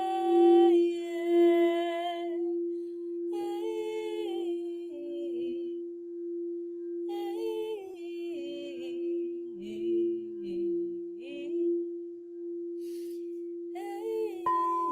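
Wordless singing in slow, gliding phrases with short pauses between them, over one steady held drone tone: free-voice toning for release.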